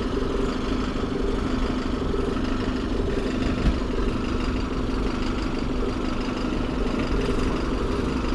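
Diesel engine of an Alexander Dennis Enviro200 single-deck bus idling steadily, freshly started. There is one brief click about three and a half seconds in.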